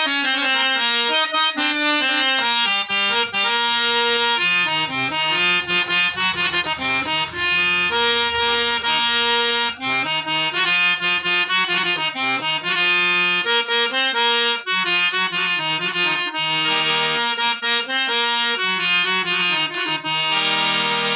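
Harmonium being played in a sound check after repair: a melody of reed notes over lower held notes, sounding continuously.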